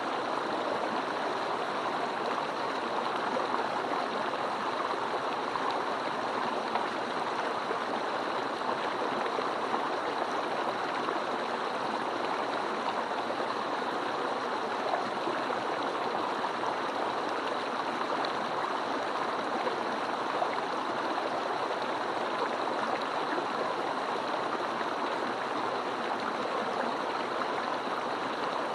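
Mountain stream flowing: a steady, even rush of water that does not change.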